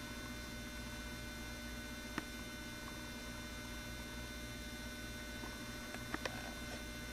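Steady electrical hum made of several fixed tones, with a faint click about two seconds in and two more near the end.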